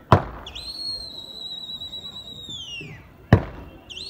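A long, loud whistle held at one high pitch, then falling away, blown to drive a flock of flying pigeons; a second whistle starts near the end. Two sharp cracks, one at the very start and one about three seconds in, are the loudest sounds.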